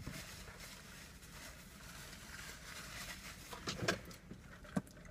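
Low steady hum inside a car cabin, with a few faint handling clicks and rustles about four seconds in.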